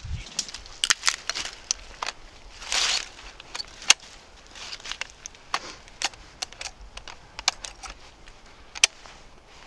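Irregular metallic clicks as .30-30 cartridges are pushed through the side loading gate of a lever-action rifle, with a brief rustle of handling about three seconds in. The sharpest clicks come about four seconds in and again near the end.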